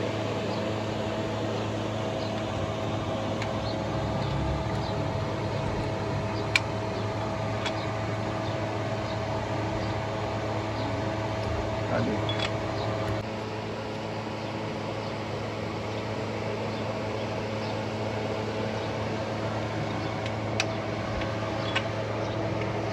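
A steady mechanical hum with a few sharp clicks; one higher tone in the hum stops about thirteen seconds in.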